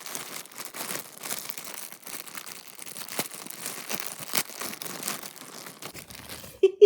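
Packaging crinkling and rustling as it is handled, with many irregular small crackles.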